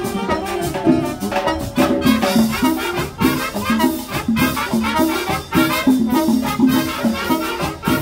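Marching band playing a Latin, salsa-style tune: saxophones and brass over a steady percussion beat.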